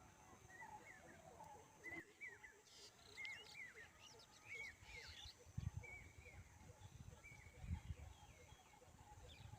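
Faint chorus of birds chirping, with many short calls that rise and fall in pitch, repeated quickly over one another. Two low rumbles stand out, about halfway through and again a couple of seconds later.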